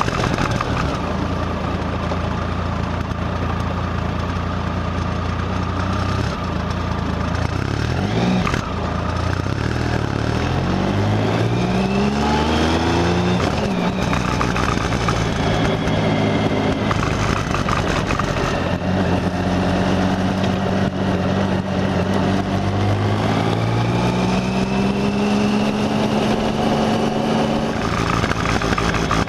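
Motorcycle engine running on the move under a haze of wind and road noise. Its pitch rises as it accelerates from about nine seconds in, breaks off briefly at a gear change, then climbs again steadily through the second half.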